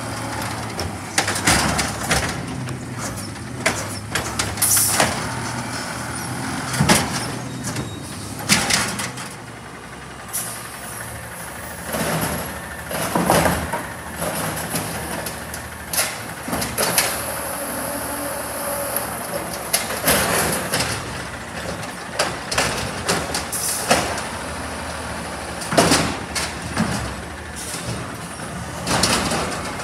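Autocar ACX natural-gas side-loader garbage truck collecting recycling carts: the engine runs steadily under the automated arm, with repeated bangs and clatter of plastic carts being lifted, dumped into the hopper and set back down. Hisses of air brakes sound as the truck stops and moves between carts.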